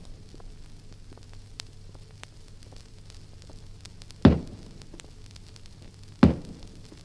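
Two shots from an antique cannon about two seconds apart, each a sharp boom that dies away quickly. Under them is the crackle, hiss and low hum of a 78 rpm record's surface noise.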